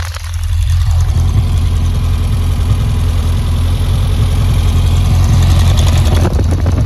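Custom 1973 Volkswagen Beetle's engine idling, heard at the exhaust. It grows louder over the first second, then runs steady.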